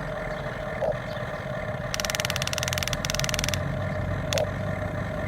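Vehicle engine running steadily, with a fast rattling buzz starting about two seconds in and lasting about a second and a half.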